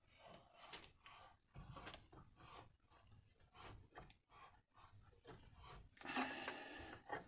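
Faint handling noises: scattered light clicks and knocks, with a brief louder scraping rustle about six seconds in.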